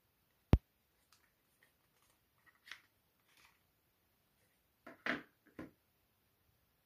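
Handling noise as a smartphone is lifted out of its cardboard box tray: one sharp click about half a second in, then faint scrapes, and a short burst of brushing and rustling about five seconds in.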